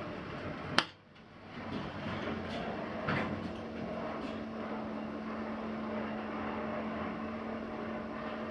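1999 Mitsubishi AXCEL-series rope-traction elevator: the doors shut with a sharp thud about a second in. The car then runs with a steady hum and a low held tone as it travels.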